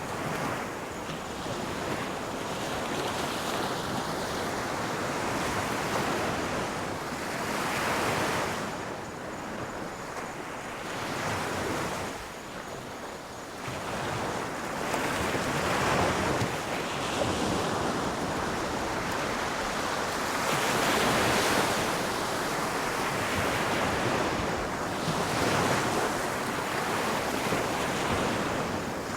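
Ocean waves breaking on a shore, the surf noise swelling and falling back every few seconds.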